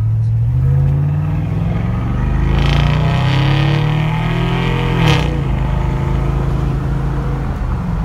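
GMC Denali's 6.0-litre V8, heard from inside the cab, pulling hard under acceleration: the engine note climbs for a few seconds, drops sharply at a gear change about five seconds in, then runs steadily as the truck cruises.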